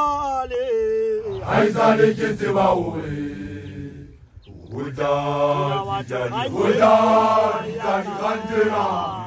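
A man's voice chanting in Sesotho. He holds one long note at first, then delivers quick declaimed phrases, breaks off briefly about four seconds in, and resumes.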